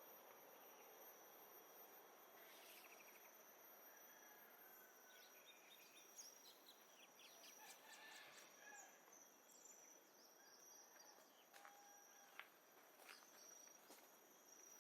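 Faint natural ambience: a steady high-pitched insect drone with scattered short bird calls, a cluster near the middle and a few more near the end.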